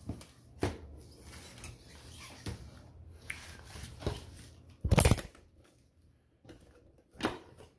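Cardboard blister packs of trading cards handled, rustling against each other, and set down on a countertop, with scattered light knocks. The loudest knock comes about five seconds in.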